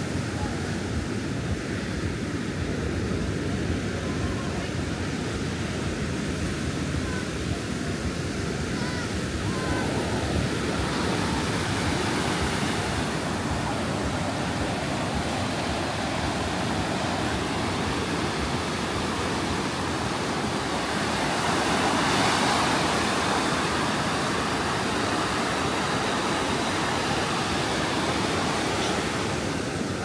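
Ocean surf breaking and washing up on a beach, a steady rush of noise with one louder wave breaking about two-thirds of the way through.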